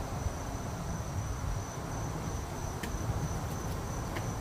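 A cricket trilling steadily, a thin high-pitched tone, over a low background rumble. Two faint clicks come about three seconds in and near the end.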